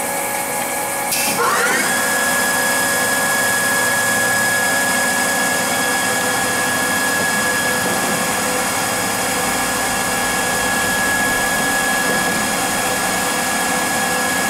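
Haas TL-1 CNC toolroom lathe running a program: its spindle drive whine rises in pitch about a second and a half in as the spindle speeds up, then holds as a steady high whine.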